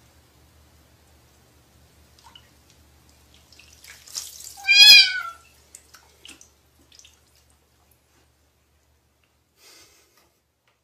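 Cat sitting in a basin of water lets out one loud, drawn-out meow that rises and falls, right after a brief splash of water. A few small drips and splashes follow.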